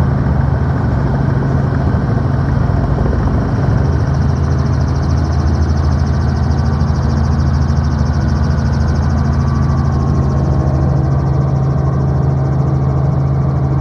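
Robinson R44 helicopter heard from inside the cabin during takeoff: its piston engine and rotor running loud and steady, with a strong low hum.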